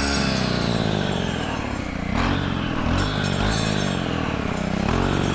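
Stihl FS 131 brush cutter's 4-MIX engine running hard with a saw blade cutting through thick weeds and brush. The engine pitch rises and falls over and over as the blade is swung through the stems.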